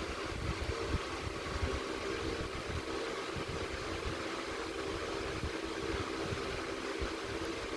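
Liliana turbo electric fan running steadily: a constant hum with air rush and an uneven low rumble.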